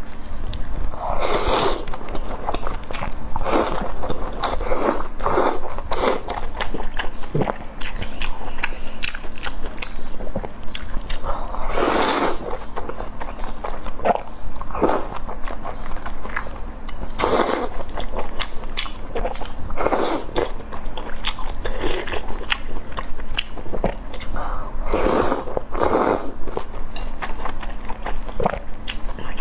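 A person eating loudly: repeated bites and chewing of sliced beef and dumplings in spicy chili-oil broth, bite after bite.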